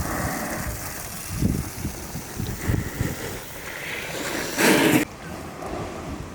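Wind buffeting the microphone in irregular low gusts over a steady hiss. About four and a half seconds in, a louder rushing noise swells and then cuts off suddenly.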